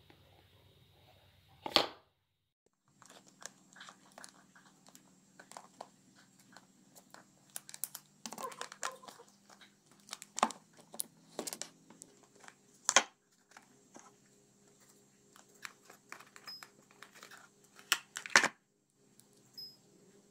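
Smartwatch box and packaging being handled and opened: irregular crinkling and tearing with scattered sharp clicks and knocks, a few much louder than the rest.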